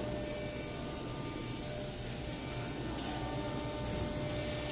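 CNC router's axis drives running as the gantry is jogged with the handwheel: a steady hiss with a faint, thin whine.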